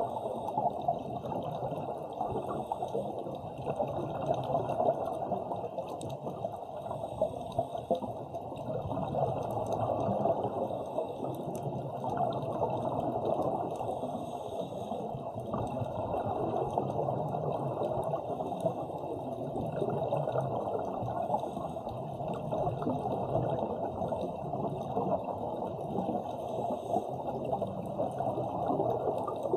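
Continuous muffled water noise recorded underwater on a scuba dive, dull and lacking highs, with an uneven churning texture that never stops.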